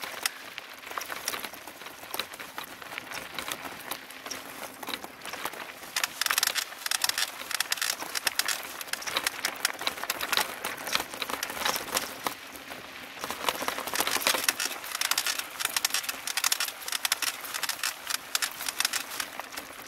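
Mountain bike rolling down a dirt trail: tyres crunching and the frame and handlebars rattling with a rapid stream of clicks, heaviest about six seconds in and again in the second half.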